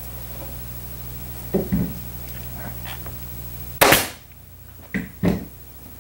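Pneumatic upholstery staple gun fires once, a sharp crack that dies away quickly, driving a staple through cotton padding into a wooden chair arm. A few dull knocks from handling the gun and the frame come before and after it.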